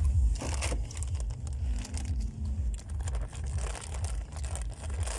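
Plastic snack-chip bag crinkling and rustling as a hand picks it up and rummages inside, in scattered crackles, over a low, uneven rumble.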